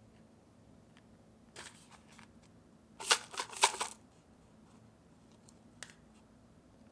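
Short crinkling, rustling handling noises: a faint one about a second and a half in, then a loud rapid cluster for about a second, and a single click near the end.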